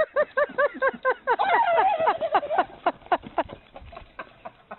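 Chickens clucking in quick repeated calls, about four or five a second, thinning out after about three seconds into scattered sharp taps.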